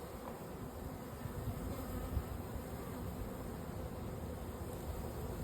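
Honeybees buzzing in a steady hum around an open hive with its frames out, over a low rumble; the large number of bees comes from a strong colony filling a double brood box.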